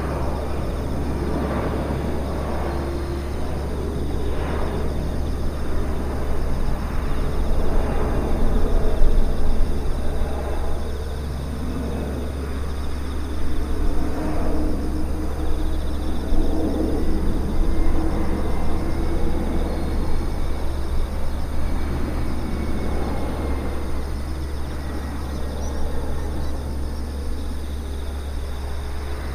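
Boeing 747 freighter's four jet engines rumbling overhead on final approach, loudest about nine seconds in and easing off after.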